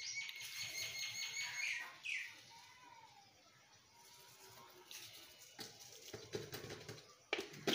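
A bird chirping in a rapid high trill for about two seconds. From about five seconds in come several light clinks and scrapes of a spoon against a metal pot as sugar is spooned into boiling tea.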